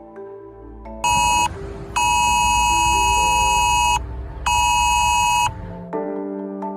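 Mobile phone emergency alert tone of the kind used in the UK's Emergency Alerts system. It sounds three times: a short blast, a long one of about two seconds, and a one-second one, each a steady pair of close pitches, over soft background music.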